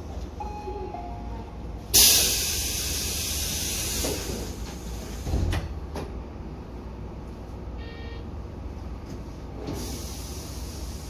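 A commuter train's compressed-air system releases a sudden loud hiss about two seconds in, fading over a couple of seconds, over the standing train's low rumble. A thump and a click follow, then a brief high electronic tone and a softer hiss near the end.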